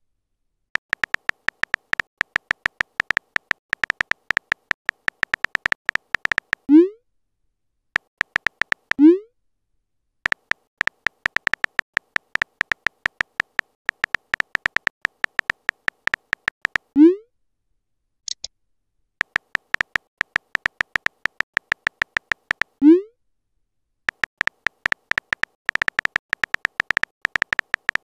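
Simulated phone-keyboard typing clicks from a texting-story app, coming in fast runs as messages are typed out. Each run ends in a short rising bloop as the message is sent, four times in all. Once, about two thirds of the way through, there is a brief high blip.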